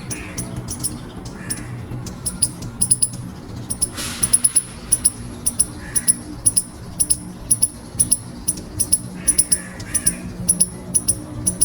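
Eastern gray squirrel calling: rapid runs of short, high-pitched squeaks with a softer, lower call every second or two.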